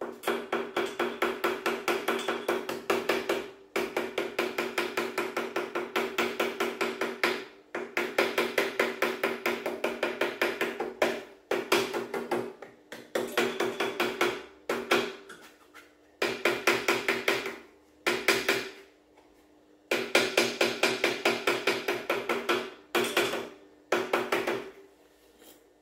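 A hammer tapping rapidly on gasket material laid over the existing metal part, about six light strikes a second, cutting the outline of a new carburetor gasket. The taps come in runs of a few seconds with short pauses and a metallic ring under them.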